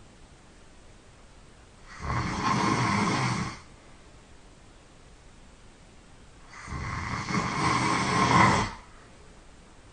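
A sleeping person snoring loudly, two long rasping snores about four and a half seconds apart, with quiet breaths in between. The second snore swells louder toward its end.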